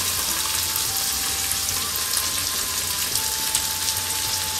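Peppers, onions and linguiça sausage sizzling steadily in a hot pan while being stirred and broken up.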